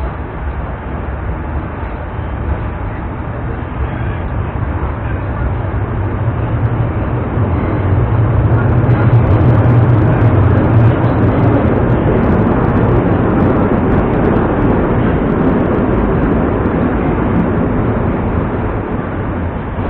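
Inside a moving Moscow Metro 81-765.2 'Moskva' car running through a tunnel: steady wheel-on-rail and traction rumble. It grows louder over the first half, peaks about ten seconds in, then holds steady.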